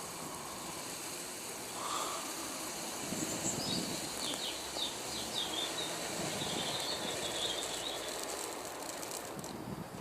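Faint rattling hiss of air-dryer desiccant granules being tipped into the dryer chamber, with handling noise, while small birds chirp in the background.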